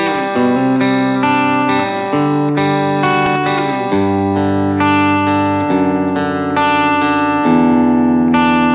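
Instrumental background music: guitar through effects playing sustained, ringing notes and chords that change every second or so, with a couple of slides down in pitch.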